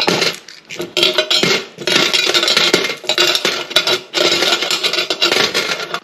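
A handful of small coins, 20p and 10p pieces, clinking and rattling as they are tipped into an honesty box, in several runs of about a second each.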